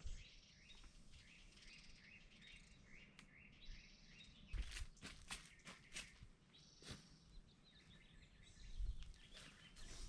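Faint chirping of small wild birds, with a few soft clicks in the middle.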